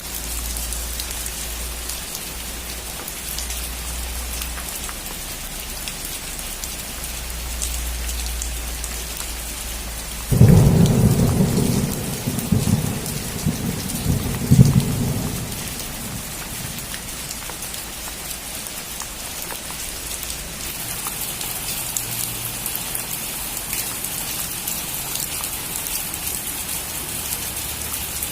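Steady rain falling on a roof, with a clap of thunder that breaks suddenly about ten seconds in and rumbles on in several loud peaks for about five seconds.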